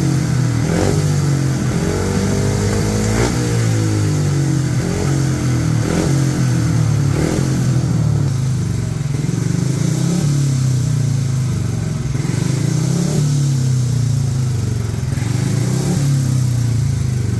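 Speedway motorcycles' 500 cc single-cylinder engines running steadily, their pitch rising and falling over and over as they are throttled on and off.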